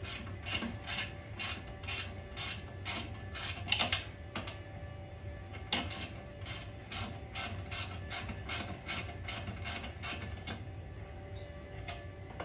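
Socket ratchet wrench clicking in quick, even strokes, about two or three a second, as a bolt is worked loose. The clicking pauses for a second or two a third of the way in, starts again, and stops about two-thirds through, with one last click near the end.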